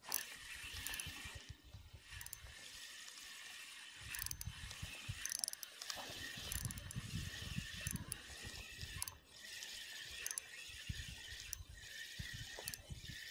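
Spinning reel being cranked to retrieve the line: a steady mechanical whir of the reel's gears, with clicks and low knocks from the rod being handled.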